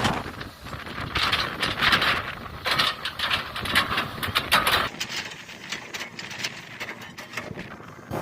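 Hitachi hydraulic excavator working through oil palms: engine rumble under irregular cracking and crunching as trunks and fronds are broken up. About five seconds in the low engine rumble drops away, leaving quieter crackling.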